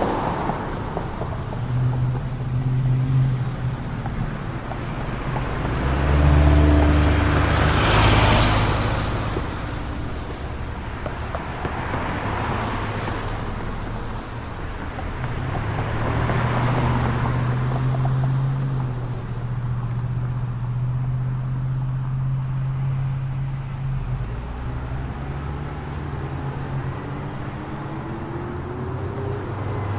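Street traffic: a steady hum of vehicle engines, with several vehicles passing, the loudest about six to eight seconds in. Near the end an engine rises in pitch as it speeds up.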